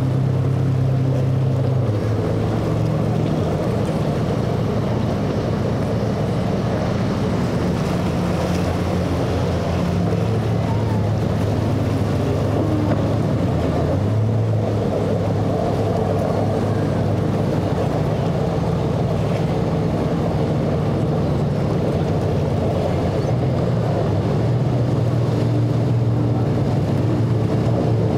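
Twin Evinrude 250 two-stroke outboard engines on a Hydra-Sports center-console boat running under way, a steady engine drone that shifts in pitch a few times, over the rush of water and wind.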